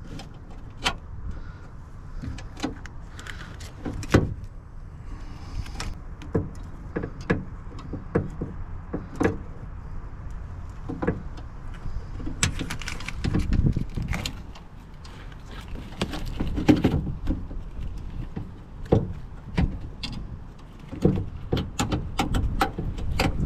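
Irregular clicks, knocks and metal clinks of hand work inside a pickup truck's door as a door handle bracket is fitted and fastened, with a few louder knocks.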